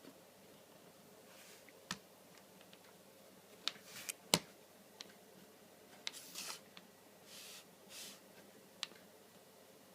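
A 13-inch MacBook Pro with Retina display making its bad sound: irregular sharp clicks and short crackling hisses at uneven intervals, over a faint steady background.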